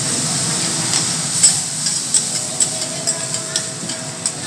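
Food sizzling on a teppanyaki griddle, a steady hiss. From about a second in, irregular sharp clicks and clanks, a few a second, as metal spatulas strike the steel griddle.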